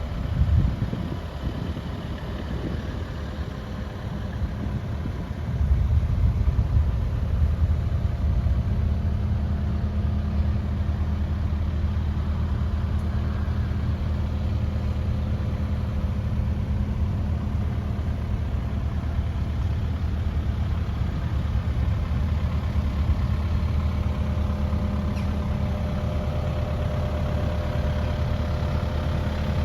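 Kubota KX080-3a 8-tonne excavator's diesel engine running at idle. It grows louder about five and a half seconds in, then holds a steady low hum. A brief loud thump comes near the start.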